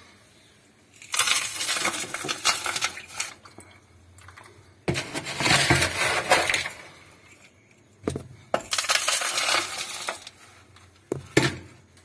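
Coarsely crushed rock salt poured from a cup through a funnel into a dishwasher's salt reservoir: a gritty, rattling pour, three times, with a couple of sharp clicks between.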